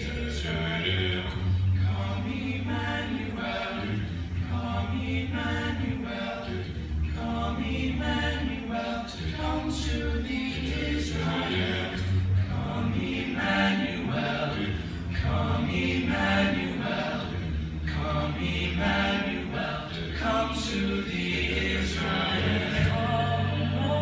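A cappella vocal group singing, the upper voices moving over a low bass line held in long notes that change every second or two.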